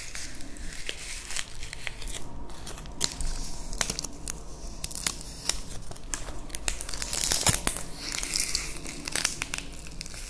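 Dry, papery onion skin crinkling and tearing as fingers peel it off the bulb, in a run of sharp little crackles close to the microphone.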